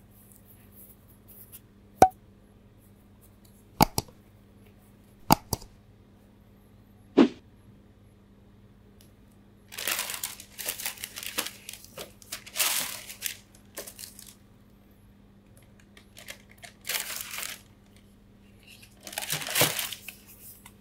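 Four sharp knocks in the first seven seconds, then tissue paper in a shoebox crinkling in bursts as it is pulled back and handled.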